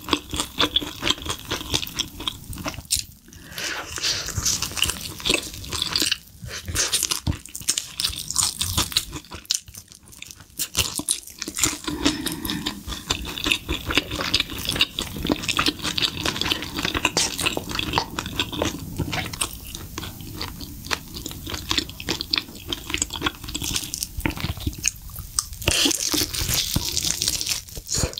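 Close-miked crunching and chewing of sauced fried chicken: the crisp coating cracking as it is torn apart by hand and bitten, with wet chewing, a dense run of crackles with no pause longer than a moment.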